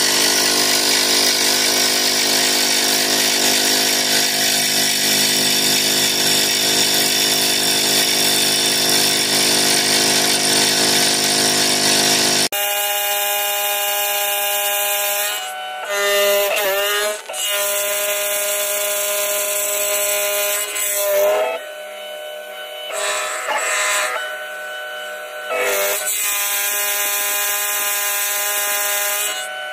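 CNC milling machine with a 10 mm end mill cutting an aluminium block, giving a steady multi-tone whine over cutting noise. About midway the sound changes abruptly to a thinner whine that dips briefly in pitch several times, as the footage runs at 4x speed.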